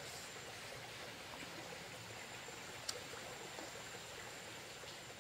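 Faint, steady rush of a flowing stream, with one small click about three seconds in.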